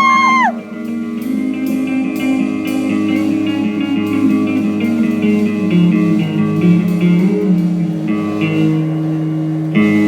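Live band music, guitar-led: picked guitar notes at a steady pulse over sustained low tones. A held high note dies away just after the start, and a fuller chord comes in near the end.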